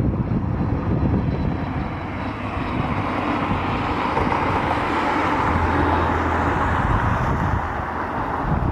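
Jet aircraft passing, its engine noise a steady rush with a low rumble that swells to a peak around the middle and eases off toward the end.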